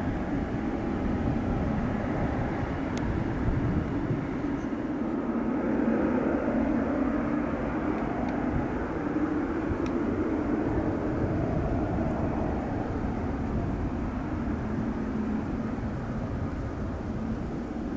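Boeing 777 freighter's twin jet engines running at taxi power as the aircraft rolls and turns onto the runway: a steady, deep rumble with a faint whine in the first half.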